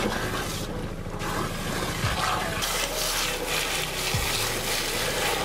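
Pressurised water jet from a hose nozzle hissing as it sprays lotus roots in shallow muddy water to wash them. The spray eases off about a second in and comes back stronger about a second and a half later, over a low steady hum.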